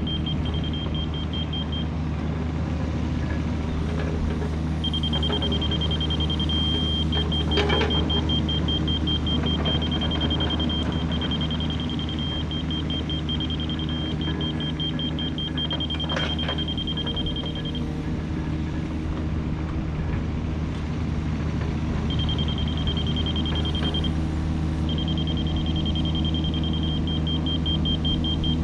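Diesel engine of a compact construction machine running steadily, with its backup alarm beeping rapidly in several stretches while it reverses. A couple of sharp knocks come about 8 and 16 seconds in.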